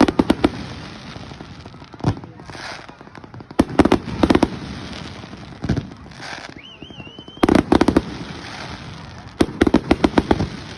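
Fireworks display: four volleys of rapid crackling bangs, each lasting about half a second to a second, with a short rising whistle between the third and the one before it.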